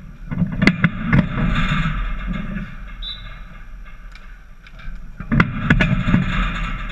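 Dek hockey play: sticks and ball knocking against each other and the plastic sport-court tiles. There are sharp knocks about a second in and a quick cluster of them around five and a half seconds, over a steady low rumble.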